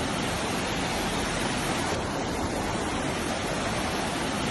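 Steady, even rush of water, unchanging throughout.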